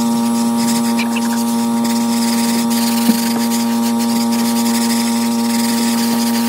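A steady, unchanging electronic tone with a stack of even overtones, with one short click about three seconds in.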